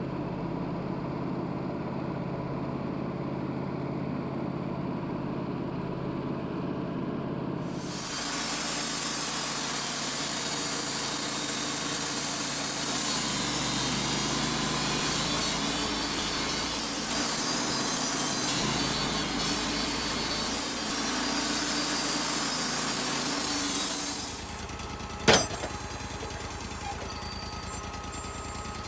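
Wood-Mizer LT35 portable sawmill running, its engine humming steadily, then its band blade cutting through a cedar log for about sixteen seconds, starting about 8 seconds in. The cutting stops near the end, leaving the engine running, with one sharp knock just after.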